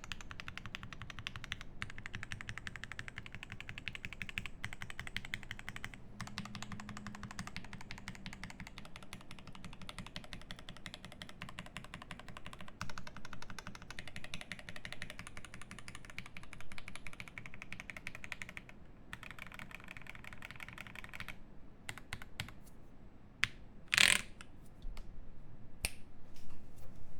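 Fast typing on a Cyberboard R3 mechanical keyboard with lubed Tealios V2 linear switches, GMK keycaps and an aluminium plate: a dense run of keystrokes. Near the end the typing thins to scattered single key presses, with one louder knock among them.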